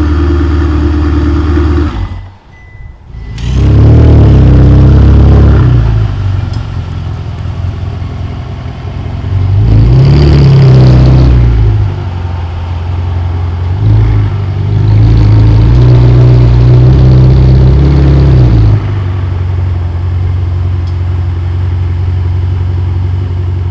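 Ferrari 488's twin-turbo V8, breathing through a loud Novitec aftermarket exhaust, idling and revved three times while standing still. Each rev is held for a couple of seconds before it drops back to idle, and the last one cuts off sharply.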